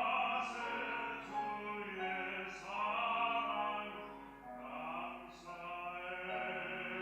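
A baritone singing a sacred solo song, holding long notes that slide between pitches, over musical accompaniment.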